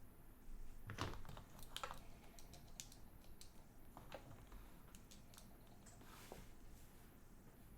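Faint, scattered clicks and light taps from handling a clamp meter and capacitors on a workbench, with the sharpest click about a second in.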